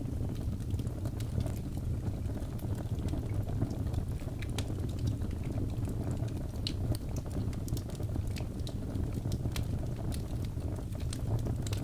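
Wood fire burning in a fireplace: a steady low rumble with scattered sharp crackles and pops from the burning logs.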